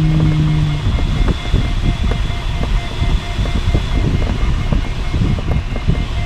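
Airflow rushing around the cockpit of an LS5 sailplane in flight: a loud, steady low rush with scattered small rattles and knocks. A low steady hum sounds for about the first second, then stops.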